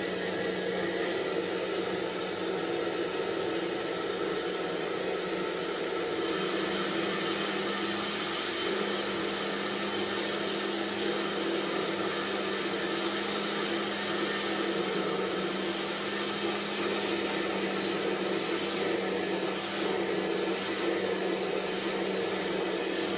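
Handheld hair dryer blowing steadily, a constant rushing hiss with a low motor hum.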